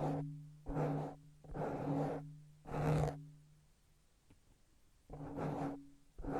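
Close-miked ASMR hand sounds: a run of rubbing swishes about once a second, each carrying a low steady hum. There is a pause of about a second and a half near the middle before they resume.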